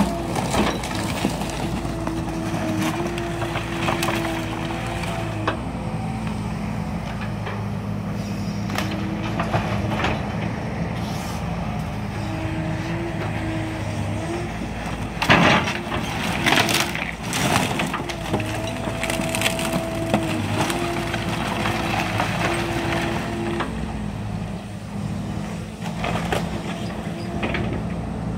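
Wooden framing of a house cracking, splintering and being crushed in demolition, over the steady running of a heavy machine's engine whose pitch steps up and down. The loudest burst of cracking and breaking comes about fifteen to seventeen seconds in.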